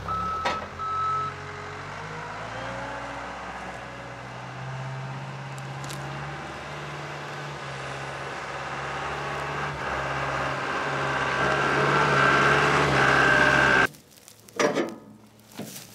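Caterpillar skid steer loader's diesel engine running and growing louder over several seconds, its reversing beeper sounding for the first second or so. Near the end the engine sound cuts off, leaving quiet with a couple of knocks as the metal scaffolding frames are handled.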